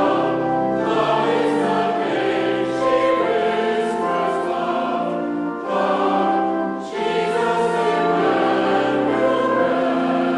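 A choir singing a Christmas hymn in long held phrases, with two brief breaks between phrases about six and seven seconds in.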